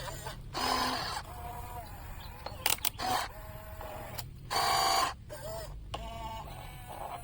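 Small electric motors of a radio-controlled toy construction vehicle whirring in three short bursts, the loudest about a second in and near five seconds in.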